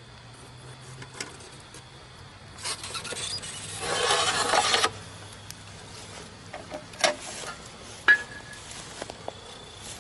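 Molten aluminium hissing as it runs into an ant mound. The hiss builds for about two seconds and cuts off suddenly, followed by a few sharp pops and faint crackling.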